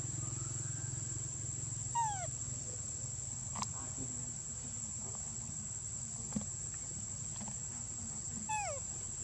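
Steady high-pitched insect drone over a low steady hum. Twice, about two seconds in and near the end, a short falling call from an animal cuts through, and there are a couple of faint clicks in between.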